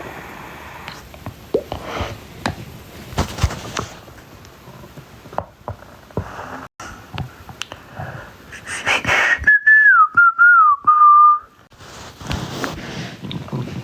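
Man's stomach growling and gurgling: a high, whistle-like squeal wavers and falls in pitch for about two seconds near the middle, amid short gurgles and clicks.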